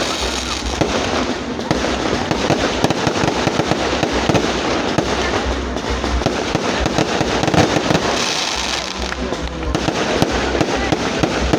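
Fireworks and firecrackers going off without a break: a dense run of rapid bangs and crackles.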